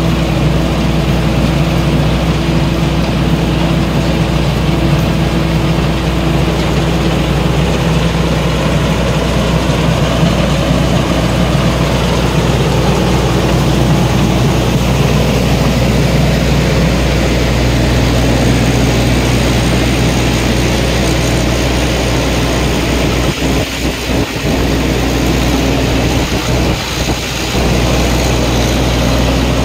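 Rice combine harvester running at work: its engine, reel and threshing machinery make a loud, steady drone. The low drone dips briefly twice after about 23 seconds.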